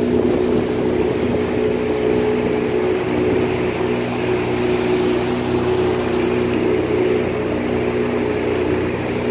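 Motorboat engine running steadily at a constant pitch while the boat cruises, over a steady rush of water and wind noise.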